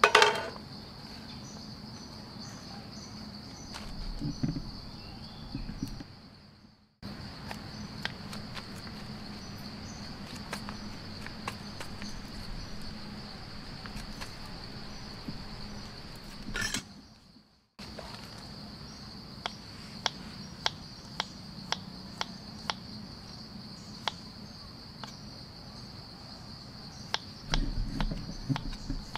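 Steady high-pitched drone of insects, which cuts out briefly twice. Over it come scattered light clicks and taps of food being handled, with knife cutting on a board near the end.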